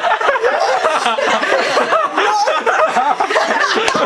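A group of teenagers laughing loudly together, several voices chuckling and snickering at once.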